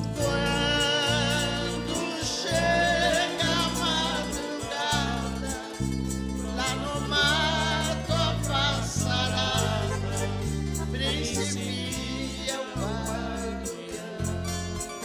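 A woman sings a slow Brazilian caipira song with vibrato, accompanied by a ten-string viola caipira, an acoustic guitar and an electric bass.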